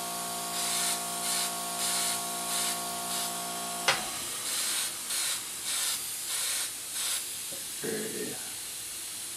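Iwata Eclipse CS airbrush hissing in short bursts, about one or two a second, as the trigger is worked, spraying paint at about 25 to 30 psi. A steady hum runs beneath it and stops with a sharp click about four seconds in.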